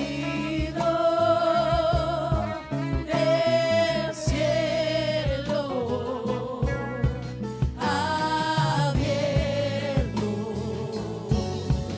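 Christian worship song in a gospel style: a singer holds long notes with vibrato over a band with drums and bass.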